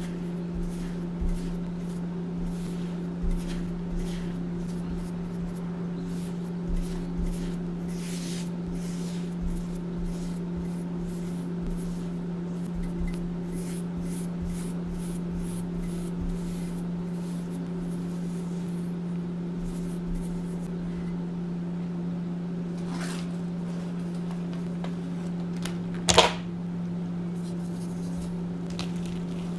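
Brush sweeping powdered gym chalk across a stone mortar: many short, soft scratchy strokes over a steady low hum, with one sharp knock near the end.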